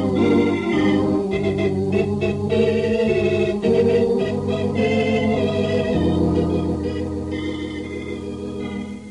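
Organ music bridge between scenes: sustained organ chords that shift a few times and slowly fade over the last few seconds.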